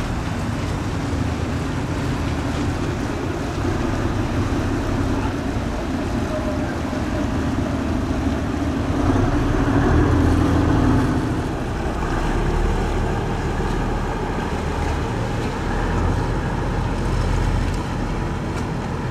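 Steady low outdoor rumble, swelling slightly about nine to eleven seconds in.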